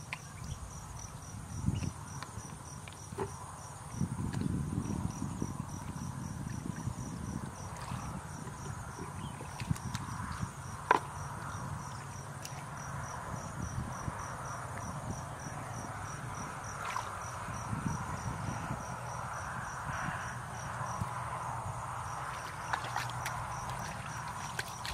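Hands and legs working through thick mud and shallow muddy water, with irregular squelches and splashes and a sharp slap about halfway through. Behind it an insect chirps in a rapid, even pulse throughout.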